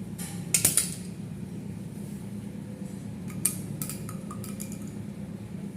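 Light metallic clinks and rattles, a short cluster about half a second in and a few more taps around three to four and a half seconds, over a steady low hum.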